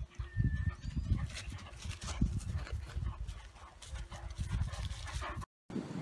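Irish wolfhounds galloping over grass: a run of irregular low thuds, cut off suddenly near the end.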